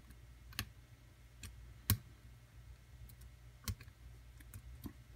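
Irregular sharp metal clicks of a lock pick and tension wrench working the pins of a challenge lock during single-pin picking, about six in all with the loudest about two seconds in.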